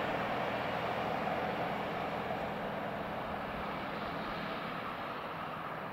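Passenger train running away on the line: a steady rolling noise of wheels on rails that slowly fades.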